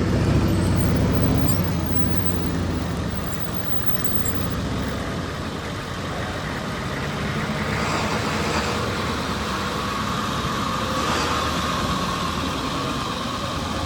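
A motor vehicle's engine running close by, loudest for the first two seconds or so, then easing into a steady traffic rumble.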